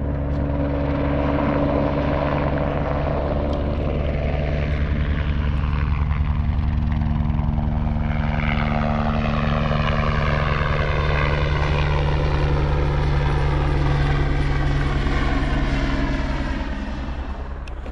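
Helicopter flying low overhead, a steady rotor chop throughout; from about halfway its pitch slides down as it passes, and it fades near the end.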